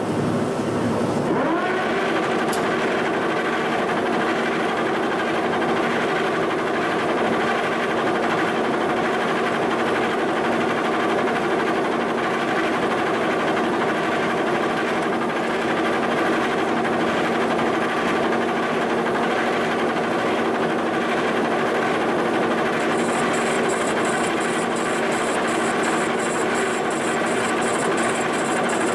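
Milling machine running, its face mill cutting cast-iron exhaust manifold castings. Several steady tones rise in pitch about a second in and then hold steady, and a faint high pulsing whine joins near the end.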